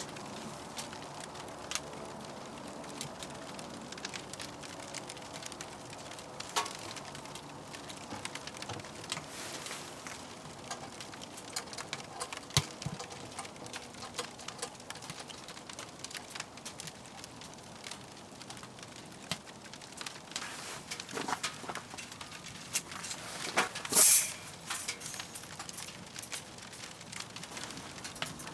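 Firewood crackling and popping in a wood-burning stove, with irregular sharp snaps over a low hiss. A single louder clatter comes near the end.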